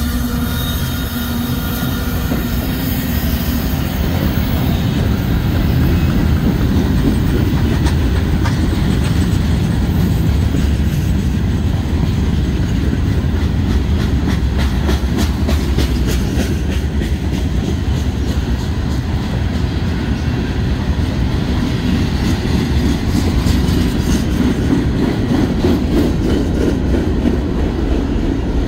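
Norfolk Southern mixed freight train rolling past close by: a mid-train diesel locomotive's engine tone fades in the first seconds, then covered hoppers and tank cars go by with a steady heavy rumble of steel wheels on rail and rapid clicking over the rail joints through the middle.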